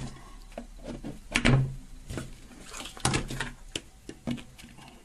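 Several sharp plastic clicks and knocks as multimeter test leads are handled and their plugs pushed into the meter's sockets.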